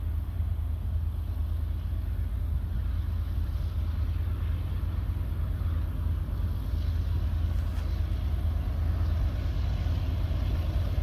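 BNSF diesel freight locomotives approaching, a steady low engine rumble growing slowly louder as they come closer, with more clatter and higher noise creeping in near the end.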